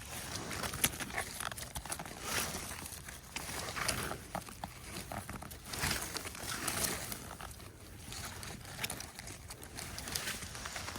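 Footsteps on the forest floor, uneven steps every second or two with a few sharp little cracks.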